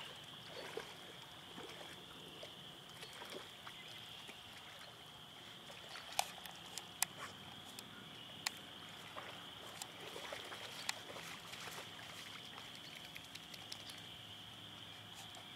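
Dogs wading in shallow lake water and lapping it up: faint scattered splashes and laps over a steady high-pitched hum.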